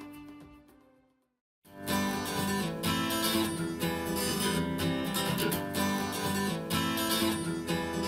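Music played back through active bookshelf speakers: the end of one instrumental track fades out, a second and a half of silence, then an upbeat pop song starts with strummed acoustic guitar.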